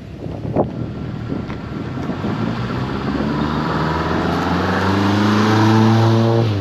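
Toyota AE86 Sprinter Trueno's engine, fitted with individual throttle bodies, accelerating hard through a gear, its note rising steadily in pitch and getting louder over the last few seconds before falling away abruptly at the end as the revs drop for a shift.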